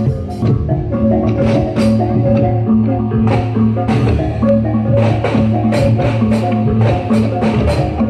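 Live Reog Bantul accompaniment music: a percussion ensemble playing quick, frequent sharp strikes over steady ringing tones.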